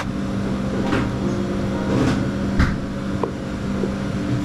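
A steady low hum with a few faint, light clicks and knocks, like chopsticks and a ceramic dish being handled.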